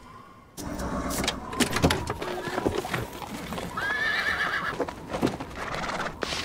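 A horse whinnies once, briefly, about four seconds in, amid scattered knocks and clatter.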